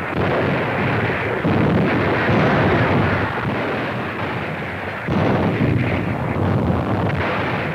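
Battle noise of explosions and gunfire on a 1940s newsreel soundtrack: a continuous rumbling din, with a sudden louder blast about five seconds in.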